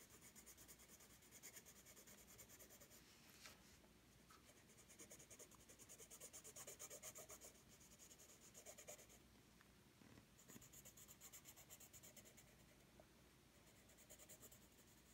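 Faint scratching of a Dixon Ticonderoga graphite pencil on paper: quick, even back-and-forth shading strokes, with a short pause about nine seconds in.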